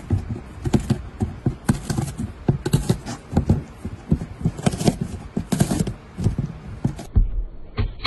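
Domestic cat biting and chewing the edge of a corrugated cardboard box: a run of crisp crunches and small tearing sounds at uneven intervals, about two or three a second.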